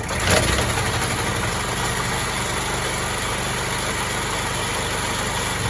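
Elepaq Constant 4.5 kVA petrol generator starting on its repaired ignition switch, catching just after the start with a brief louder surge, then running steadily. The switch is now working.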